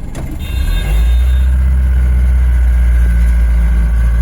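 A vehicle engine running, a steady low hum that gets sharply louder about half a second in and then holds steady.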